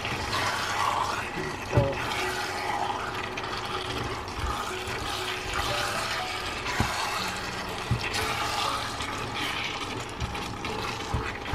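Chicken, red pepper and onion stir-fry in a thick oyster sauce sizzling and bubbling in a nonstick frying pan as a spatula stirs it, with a few knocks of the spatula against the pan.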